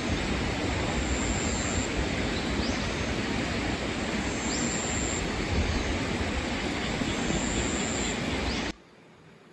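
Steady rushing outdoor noise, even in loudness, which cuts off abruptly near the end.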